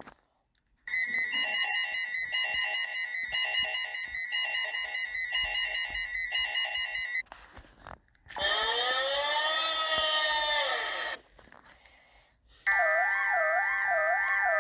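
A run of emergency-alert alarm tones. First a steady tone with a short higher beep repeating about once a second. After a brief gap comes a swooping tone that rises and falls. Then a warbling wail that wavers up and down about twice a second.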